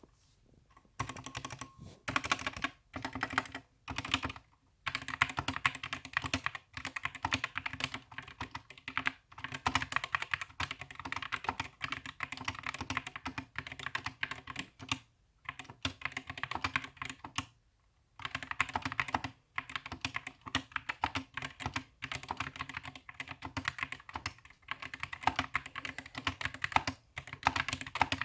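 Stock SK61 mechanical keyboard, unlubed and unmodified, typed on in quick runs of keystrokes with brief pauses between them.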